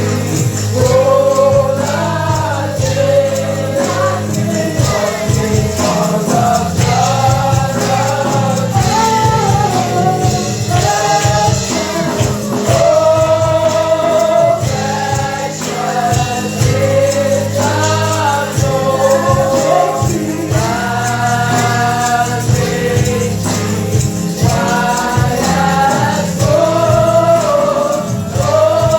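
Gospel praise music: a choir or congregation singing with a band, bass and a tambourine shaking in a steady rhythm.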